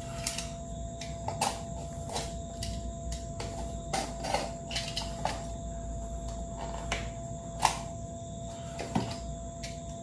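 Small cardboard box being handled and opened by hand: scattered light crinkles, scrapes and clicks, over a faint steady hum with a thin constant tone.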